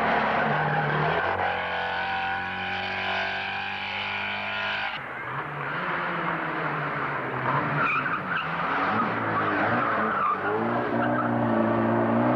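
Engines of small historic rally cars running hard as they pass on a stage. The sound changes suddenly about five seconds in, and near the end an engine rises in pitch as it accelerates away.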